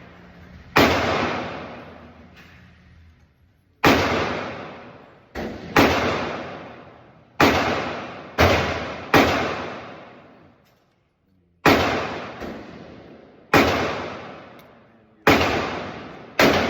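Gunshots on a shooting range: about ten single shots fired at an uneven pace, one to two seconds apart. Each is a sharp crack with a long echoing tail.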